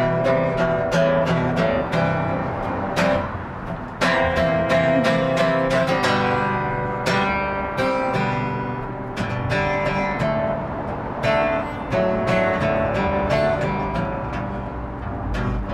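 Acoustic guitar strummed in a steady rhythm, playing chords in an instrumental passage without singing. The strumming grows louder about four seconds in.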